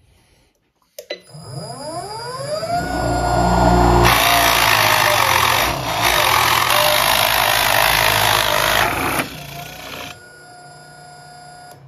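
A Nova Viking drill press starts up, its motor whine rising in pitch as it comes up to speed. A large Forstner bit then bores through a wooden board, with loud steady cutting noise for about five seconds. After the cut the bit is lifted clear and the spindle runs on more quietly until it stops near the end.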